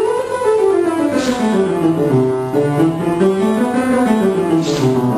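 Piano scale practice: runs of single notes stepping down, then up, then down again at an even pace.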